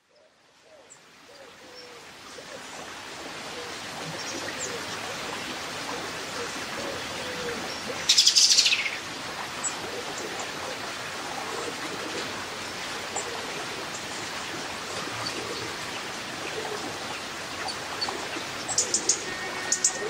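Birds chirping and singing over the steady rush of river water, fading in over the first few seconds. About eight seconds in, one loud bird phrase sweeps downward, and a few sharp, loud chirps come near the end.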